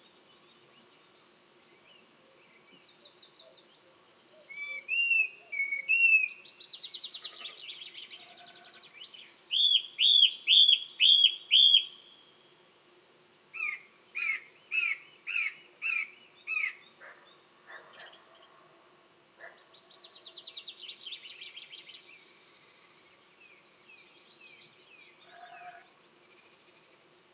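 Song thrush singing: loud, clear phrases, each repeated several times over (three, then five, then six times), with softer fast trills in between.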